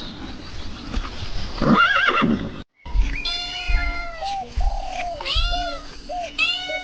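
A horse whinnies once over a noisy background. After a sudden cut, another animal starts a string of short, arching, high-pitched calls.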